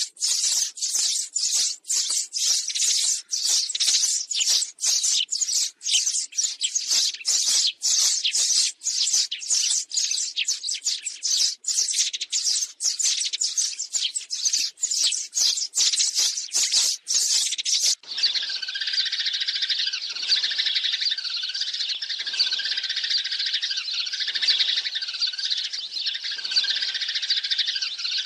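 A flock of sparrows chirping and chattering rapidly and continuously: a lure recording of sparrow flock calls used to draw sparrows to a trap. About 18 seconds in, the sound changes abruptly to a duller, denser chorus that repeats roughly every second, like a different looped recording.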